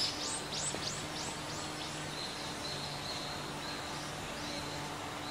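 Outdoor animal calls: a run of quick high notes, each sliding downward, about three a second and fading over the first two seconds, then a string of short level notes. A low hum comes and goes underneath.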